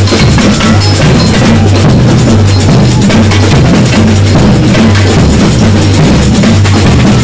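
Batucada samba drum group playing loudly: deep surdo bass drums beat a steady repeating pattern under a dense layer of snare drums.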